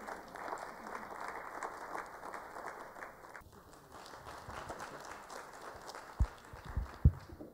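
Audience applauding, a steady patter of clapping, with a few low thumps near the end.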